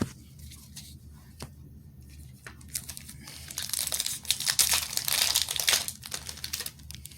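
Plastic booster-pack wrapper of a Magic: The Gathering card pack being torn open and crinkled: a few scattered rustles at first, then a dense crackling tear and crumple about halfway through.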